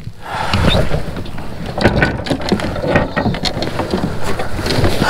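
Irregular clicks, knocks and rustling as gear is handled in a plastic fishing kayak.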